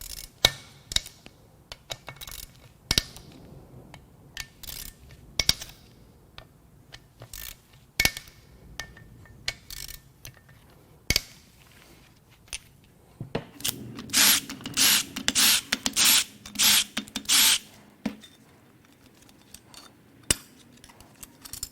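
Hand tools working bolts off a cam cap plate on a Ford 4.6L DOHC V8 cylinder head: scattered metallic clicks, clinks and knocks. About two-thirds of the way through comes a run of loud, rapid clicks over a low hum lasting several seconds.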